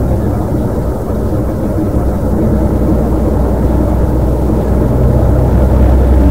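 Steady, low-pitched engine and road noise inside a moving vehicle's cab while driving at road speed.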